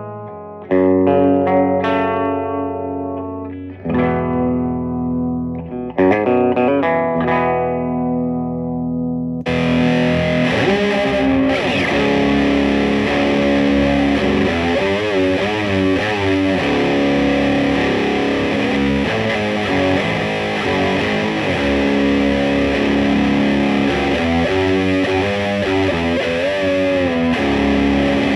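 Electric guitar played through a Peavey Bandit 112 combo amp fitted with a Peavey Blue Marvel 12-inch speaker. First come clean chords struck a couple of seconds apart and left to ring. About a third of the way in, the guitar switches suddenly to a distorted tone, with riffs and string bends with vibrato.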